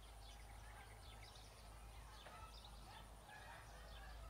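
Faint birds chirping and calling, many short high notes scattered throughout, over a low steady rumble.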